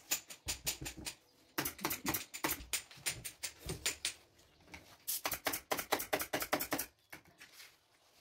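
Rapid crackling and rustling in several bursts as a sheet of upholstery foam is pulled and pressed over a sofa arm packed with old rag stuffing.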